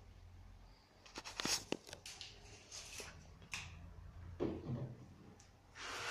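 Handling noises from a heavy truck tyre being stood up and tipped over on a carpeted floor. There is a quick run of sharp clicks and knocks, a duller thump past the middle, and a rubbing rustle near the end as hands grip the tread.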